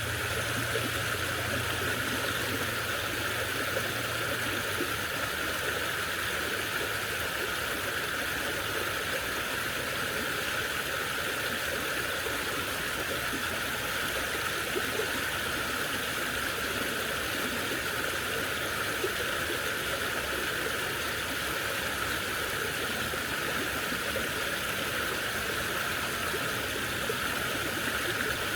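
A gentle stream flowing steadily: an even, unbroken rush of running water.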